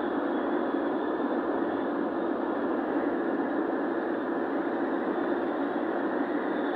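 Steady engine and road noise of a vehicle driving along, even throughout with no change in speed or gear.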